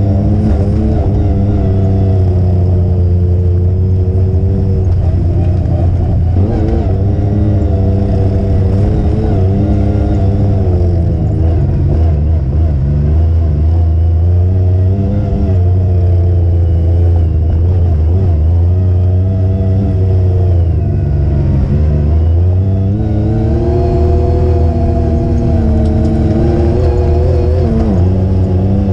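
Off-road vehicle engine running hard on a dirt trail, its pitch rising and falling repeatedly as the throttle is opened and eased off.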